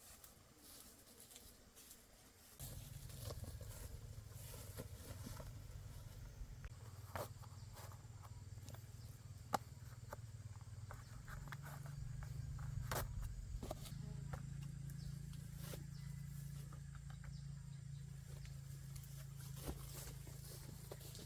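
A low, steady hum comes in a couple of seconds in and holds, shifting slightly in pitch partway through, with scattered light clicks and taps over it.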